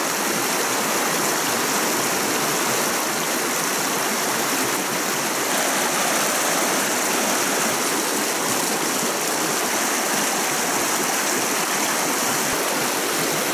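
Shallow river riffle: water rushing and splashing over stones in a steady, even rush with no break.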